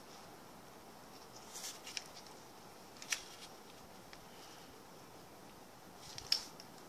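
A plastic bag of air-dry clay crinkling a few times as it is squeezed by hand, with brief sharp crackles, the sharpest about three seconds in and the loudest near the end, over a faint steady hiss.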